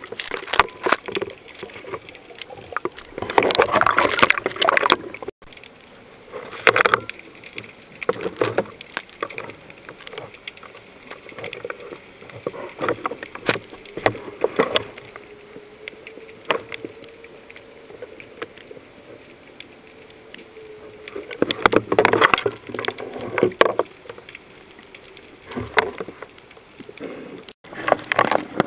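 Water sloshing and gurgling around a camera dipped underwater, in irregular bursts, with a faint steady hum in the middle stretch.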